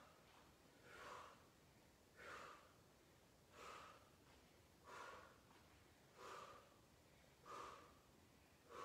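Faint, rhythmic breathing of a person exercising: seven short exhalations, evenly spaced about 1.3 s apart, one with each repetition.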